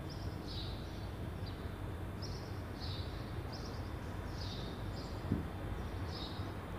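A small bird chirping, with short high chirps repeated irregularly about once a second over a steady low hum.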